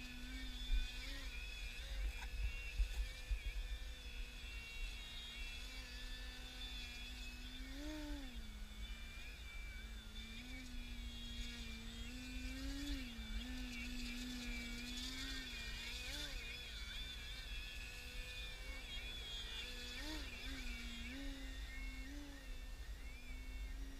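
Electric motor and propeller of an E-flite Extra 300 1.3m 3D RC plane: a steady buzzing hum that swells up in pitch and falls back several times as the throttle is worked while it hangs nose-up in a hover. A low rumble runs underneath, strongest in the first few seconds.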